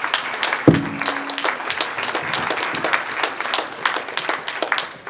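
Audience applauding, a dense patter of hand claps that fades at the end. About a second in, a single thump is heard, followed by a short low hum.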